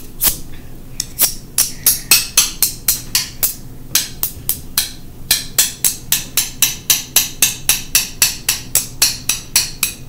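Wooden chopsticks used as drumsticks, tapping on a hard object. Scattered sharp clicks at first, settling about halfway through into a quick, even beat of about four taps a second.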